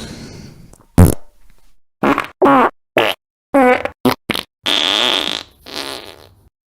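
Recorded fart sound effects: a quick string of short farts, several with a wobbling, bending pitch, then two longer, hissier ones near the end.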